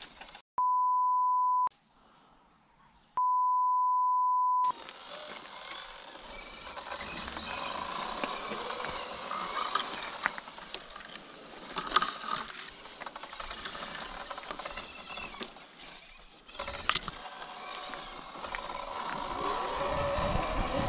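Two steady 1 kHz censor bleeps in the first five seconds, the first about a second long and the second about a second and a half. After them, the riding noise of a Sur-Ron electric dirt bike pushing through dense brush: leaves and branches rustling and scraping against the bike and rider, with scattered crackles.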